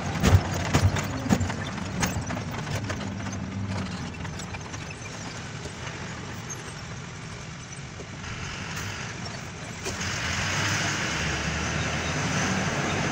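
Ashok Leyland BS6 diesel truck running at low speed, heard from inside the cab as a steady low hum, with clicks and rattles in the first couple of seconds. About ten seconds in a louder hiss comes in over the engine.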